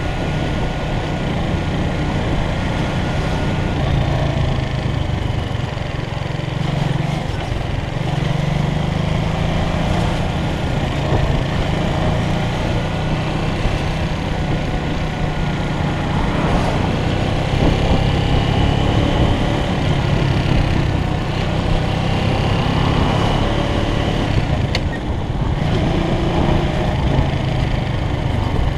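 Motorcycle engine running steadily as the bike is ridden at low speed, a constant low drone with no sharp revving.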